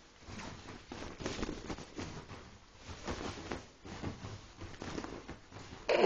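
A young whippet scrabbling about frantically: irregular bursts of quick pattering and scuffing from paws and body. A sudden louder noise breaks in right at the very end.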